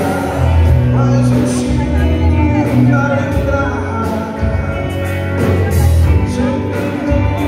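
Rock band playing live through a venue PA: electric guitars, drums and keyboard over a heavy bass line, with a sung lead vocal.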